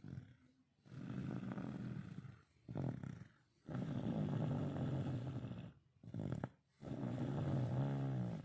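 Snoring in deep sleep: three long, low, droning snores, each followed by a short breath sound, repeating at an even pace.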